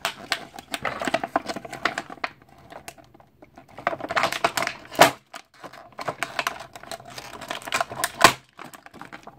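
Clear plastic bag crinkling and crackling in the hands as an action figure is worked out of it, with a dense run of irregular crackles and two louder sharp snaps about five and eight seconds in.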